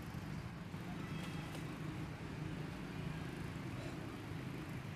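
Steady low outdoor background rumble, with a few faint short high chirps about a second in.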